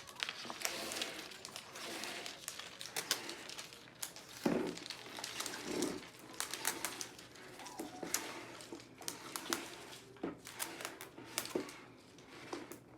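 Wrapping on a toy surprise egg crinkling and crackling as it is torn and peeled off by hand, in many small, irregular crackles and rustles.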